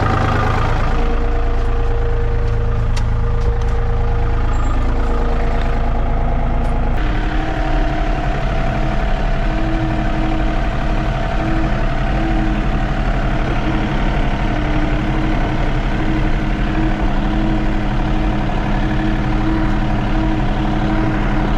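Diesel farm tractor engine running steadily; about seven seconds in its note changes and rises slightly.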